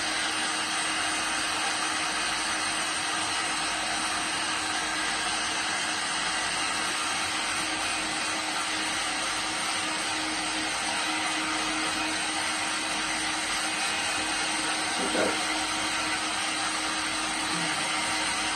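Electric heat gun running steadily, its fan blowing hot air to shrink thick glue-lined heat-shrink tubing over the end of a speaker cable. A constant rushing of air with a faint steady motor hum.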